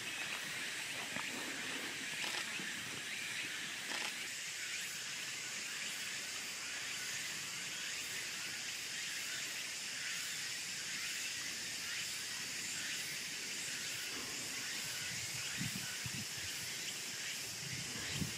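Steady high-pitched hiss of outdoor ambience, with a few faint low rumbles near the end.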